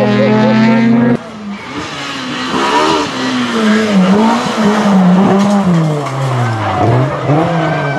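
Rally car engine held at steady high revs, cut off abruptly about a second in. Then a Honda Civic hatchback rally car's engine revs up and down again and again through gear changes and lifts, the pitch sweeping with each change.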